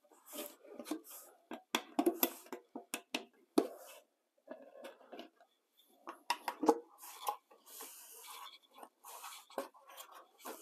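An awl prying at a metal epoxy can and lid, popping off the little shipping tabs: a run of irregular metallic clicks, scrapes and clinks.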